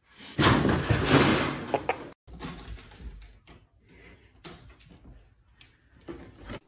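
A carpeted cat tree toppling over with a loud crash and clatter lasting about a second and a half. Then light scratching and clicks of a cat's claws climbing a tall scratching post, with a louder scuffle near the end.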